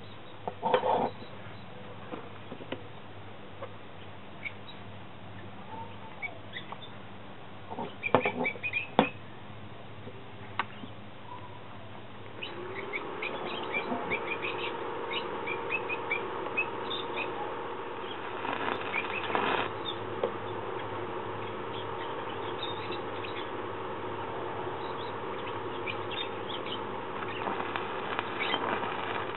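Steel pieces clank a few times as they are handled. About twelve seconds in a steady hum comes on, and near the end a stick arc welder strikes and crackles as a flat steel bar is welded to an iron base. Small birds chirp throughout.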